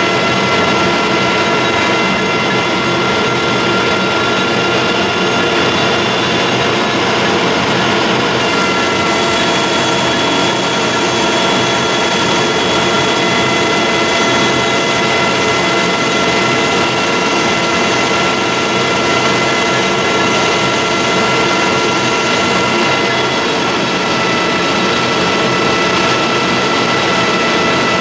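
Colchester Student geared-head lathe running steadily, its gearbox giving a constant whine of several tones, while a high-speed-steel tool takes a turning cut along a spinning metal bar. A higher hiss joins about eight seconds in.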